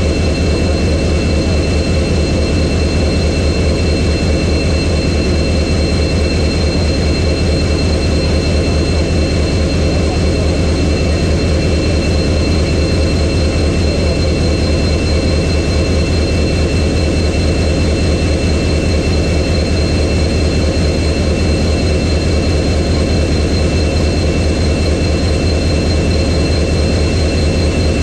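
EMD WDP-4B diesel-electric locomotive's 16-cylinder two-stroke 710 engine idling with a steady deep hum, with a thin high-pitched whine above it.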